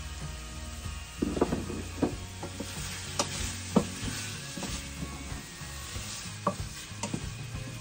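Wooden spatula stirring cubed tofu and tomatoes in a stainless steel pot, knocking against the pot about once a second from about a second in, over the sizzle of the food frying.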